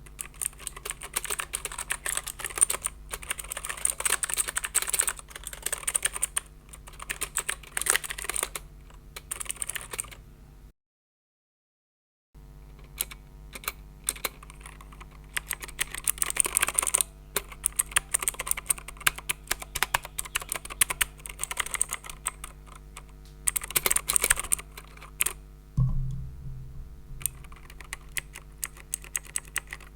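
Typing on a Rapoo Vpro V500 Alloy budget keyboard: rapid key clicks in bursts, with a brief dead-silent gap about a third of the way in. A low thump comes near the end.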